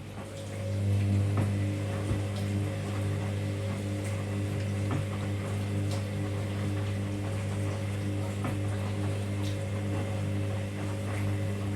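Hoover DynamicNext washing machine's drum motor starting up about half a second in and running with a steady low hum as it turns the drum in the main wash, with faint scattered clicks over it.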